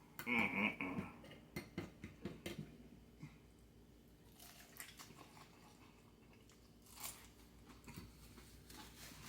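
A man chewing food, with a quick run of short mouth clicks in the first three seconds, then only a few faint sounds.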